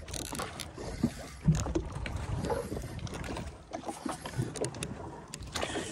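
Small waves lapping and slapping against the hull of a drifting fishing boat, with scattered irregular knocks and rustling handling noise.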